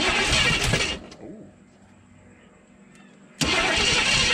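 AMC 290 V8 being cranked over on fuel primed into the carburettor, in two goes: about a second of cranking, a pause, then cranking again from about three and a half seconds in.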